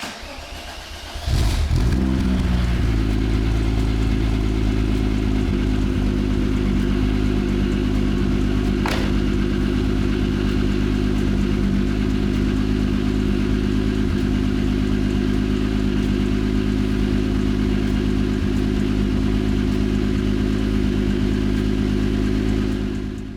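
VW VR6 engine starting: a second of cranking, then it catches, flares up and settles to a steady idle, freshly back together after a clutch and lightweight flywheel replacement. A single sharp tick sounds about nine seconds in.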